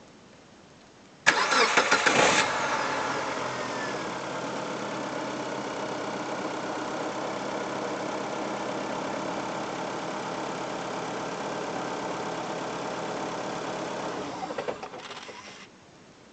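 Mitsubishi 4G18 1.6-litre four-cylinder petrol engine cranking and starting about a second in, then idling steadily. Near the end it is switched off and knocks a few times as it stops, the shutdown knock under investigation.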